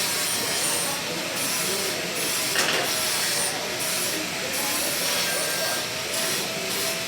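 MIG welding arc, a steady crackling hiss with short breaks, and a sharp click about two and a half seconds in.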